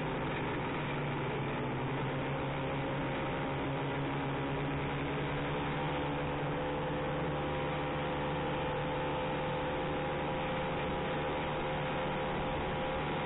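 1969 Ski-Doo Olympic 320's two-stroke engine running steadily under way, a drone that holds one even pitch throughout.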